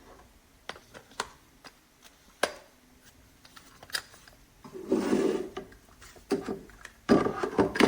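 Plastic parts of a cold brew coffee maker's Tritan pitcher, filter basket and caps being handled and fitted back together: a series of light clicks and knocks, with a rubbing, scraping sound lasting about a second roughly five seconds in.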